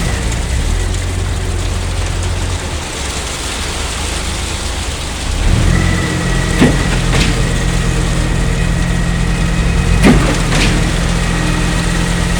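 Heavy diesel engine of concrete-pouring machinery running steadily; its note strengthens about five seconds in, and two pairs of sharp knocks sound over it in the second half.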